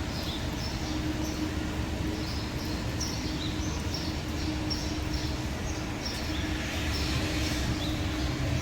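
A small bird chirping over and over, about two short, high chirps a second, over a steady low rumble and hum.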